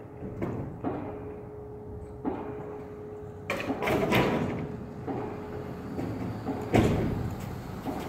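Distant pile driving: irregular heavy metallic knocks and clanks echoing among buildings, with a cluster of strikes around four seconds in and the loudest blow near seven seconds, over a steady hum.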